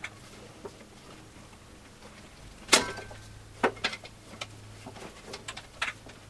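A rubber bandsaw tire being stretched by gloved hands onto the upper wheel of a 17-inch Grizzly bandsaw, giving scattered knocks and snaps. The loudest is a sharp knock a little under three seconds in, followed by a few lighter ones.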